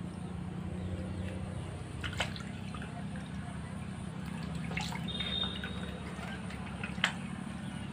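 Hands working mushrooms in a steel basin of water: small splashes and drips every couple of seconds as the mushrooms are rinsed and pulled apart, over a steady low hum.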